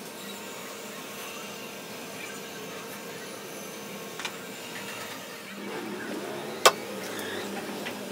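Belt-driven wood lathe running with a steady mechanical hum, with a single sharp knock about two-thirds of the way through.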